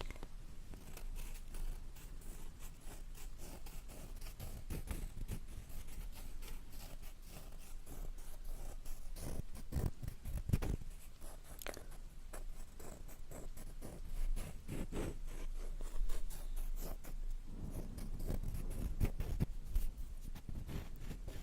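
Close-miked ASMR trigger sounds: soft, rapid, irregular scratching and tapping crackles, with a few fuller rubbing sounds around the middle and again near the end.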